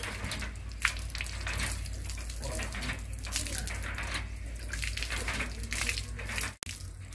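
Water pouring from a hand pump's spout and splashing over hands and onto a concrete floor while the pump is worked. There is a sharp click about a second in, and the sound briefly cuts out near the end.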